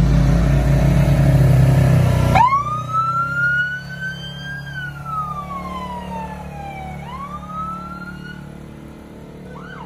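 A race UTV's engine running close by, cut off abruptly about two and a half seconds in. A siren then wails: its pitch rises, slowly falls, and rises again, with faint chirps near the end.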